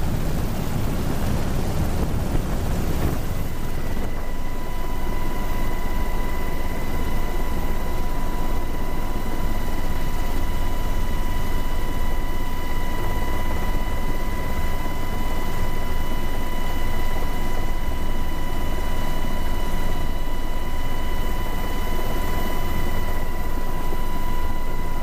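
Black Hawk helicopter heard from inside the cabin with the door open: a loud, steady drone of rotors and engines with rushing wind. A steady high whine comes in about three seconds in and holds.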